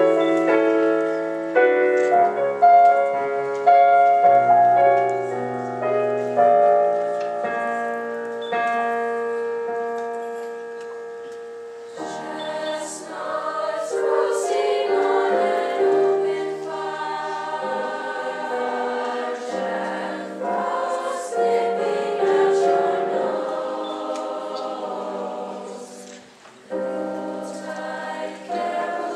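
Piano playing a soft introduction for about twelve seconds. Then a mixed high school choir comes in, singing in parts with the piano accompanying.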